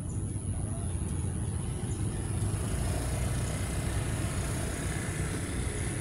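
Steady low rumble of outdoor background noise, with a faint, thin, high steady whine above it.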